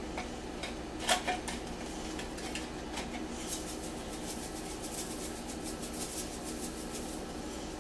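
Seasoning being shaken from a spice container onto pizza dough: a run of faint, quick, rattling ticks through the second half, with a sharper clink about a second in, over a steady low hum.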